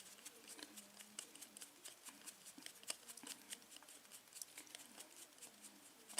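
Faint, scattered small metal clicks and scrapes of a tool working on a partly disassembled pin-tumbler lock.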